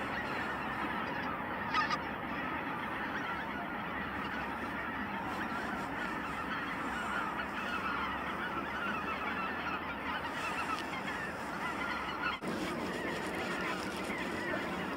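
A large flock of wild waterfowl calling, many overlapping calls forming a steady din.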